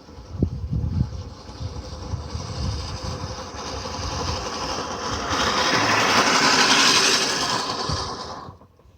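Push reel mower cutting grass as it is pushed along, its spinning reel making a steady whirring rush. The sound starts with a couple of low thumps, grows louder over several seconds, and stops shortly before the end.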